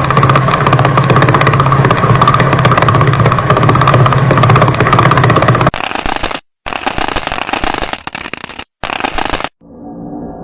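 Sonified space recordings played back-to-back: a dense, loud crackling static with a steady low hum for about six seconds, then a duller crackling recording broken by two brief silences. Near the end a soft tonal drone begins.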